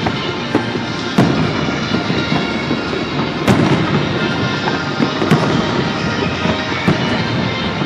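Fireworks bursting: a string of sharp bangs, about every second or two, over music and the dense rumble and crackle of the display.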